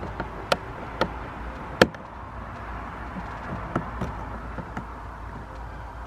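Sharp clicks and taps of a prying tool working a clip-in boot light housing out of the boot trim, the loudest snap a little under two seconds in, then a few softer clicks around four seconds.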